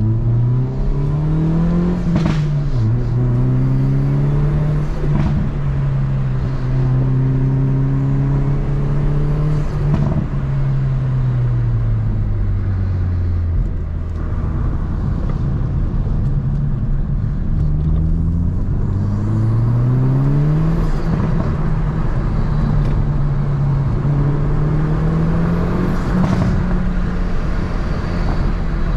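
Hyundai i30N's turbocharged 2.0-litre four-cylinder on its stock exhaust, pulling up through the revs and shifting several times. Its pitch climbs, drops sharply at each gear change, holds steady, then eases down before climbing again. A few brief sharp cracks come through along the way.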